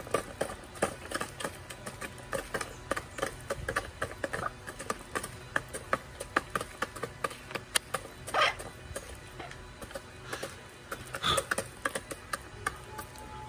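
Chickens pecking feed off the ground around a plastic feeder: a rapid, irregular clicking of beaks striking grain and soil. Two louder short clucks stand out, about eight and eleven seconds in.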